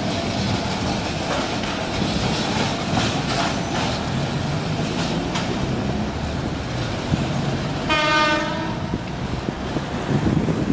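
Apolo diesel railcar pulling away, its engine running under load with wheels clicking over rail joints. About eight seconds in it sounds its horn in one blast of about a second.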